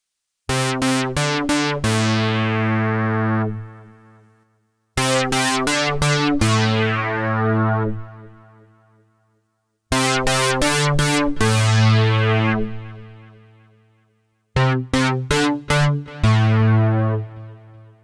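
Roland Juno-60 software synthesizer (Roland Cloud) playing its "VeloMOD Bass" preset: four short bass phrases, each a few quick notes ending on a held low note that fades out. The notes are bright at each attack and quickly turn darker.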